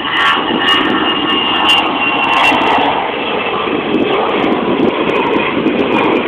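Jet engines of a Boeing 747 rolling out on the runway after landing: a steady, loud jet noise with a high whine running through it.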